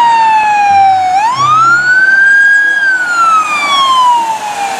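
Emergency vehicle siren in wail mode: a single wailing tone falls slowly, sweeps up about a second in, holds briefly at the top, then falls slowly again.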